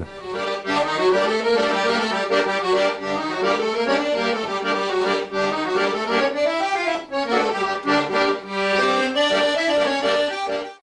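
Background music played on accordion: a melody over held notes, cutting off abruptly near the end.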